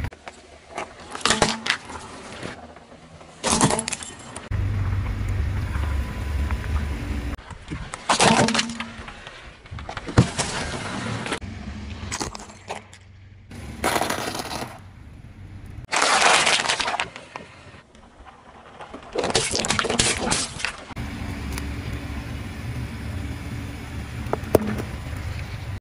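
A car tyre rolling slowly over brittle plastic toys and crushing them: a string of separate sharp cracks and crunches of breaking plastic, with a low rumble from the car between some of them.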